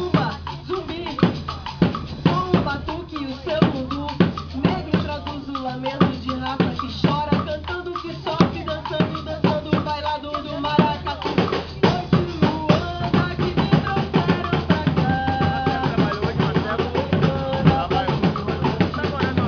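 Maracatu drumming: a dense, steady rhythm of deep bass drums and snare drums, with a voice singing over it.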